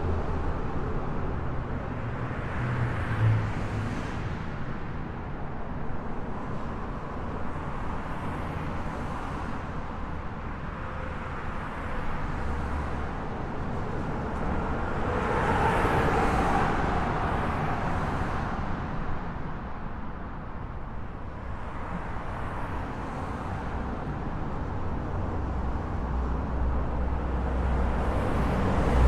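Highway traffic: a steady wash of tyre and engine noise with a low rumble, swelling as vehicles pass, most strongly about halfway through and again near the end.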